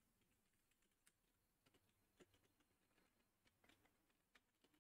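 Near silence, with faint scattered clicks of typing on a computer keyboard.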